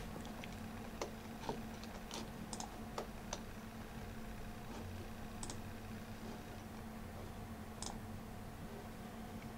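Faint, scattered clicks of a computer mouse being used to scroll and click through a web page, over a steady low hum.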